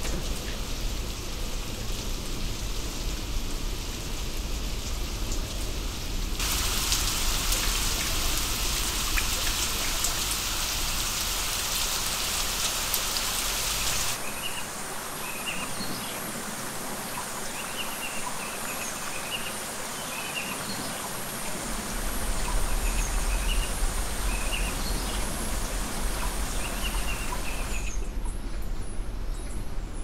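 Andean forest ambience: a steady hiss, much louder for several seconds about a quarter of the way in, with short high chirps repeating over it in twos and threes through the second half.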